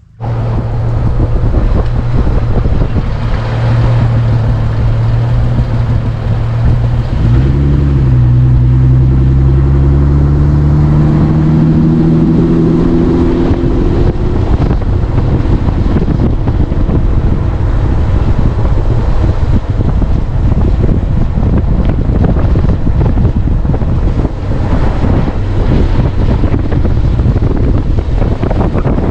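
A motor vehicle's engine running under heavy wind rush on the microphone. The engine hum rises in pitch about seven seconds in, then sinks under the steady wind noise.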